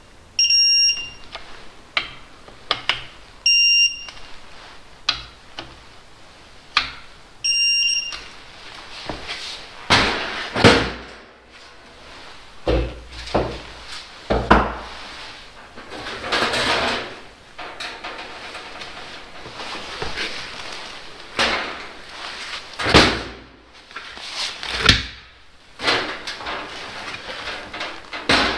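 Electronic torque wrench beeping three times in the first eight seconds as bolts on the engine's front reach their set torque, with small clicks between. After that come irregular metal clanks, knocks and rustling of tools and parts being handled.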